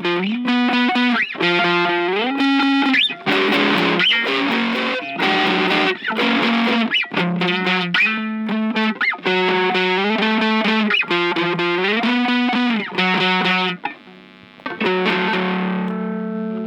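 Distorted electric guitar through effects playing an instrumental passage: repeated phrases of held notes with upward bends, then a chord left ringing near the end.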